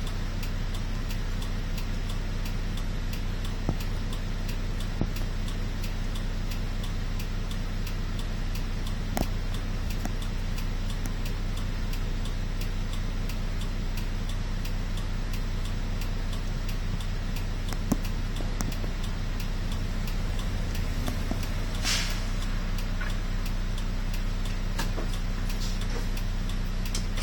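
A city bus's diesel engine idling at a standstill, heard from inside the cabin: a steady low hum with scattered light clicks and rattles, and a brief hiss near the end.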